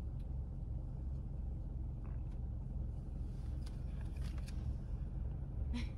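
Steady low hum inside a car's cabin, with a few faint clicks and rustles of the baby camera being handled in the back seat.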